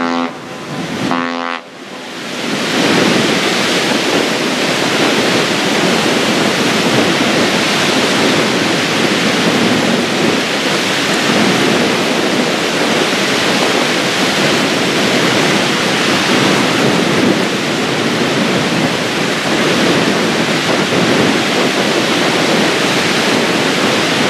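A short blast of a ship's horn about a second in, a steady low note with many overtones. Then a steady, loud rush of wind and wind-whipped choppy water.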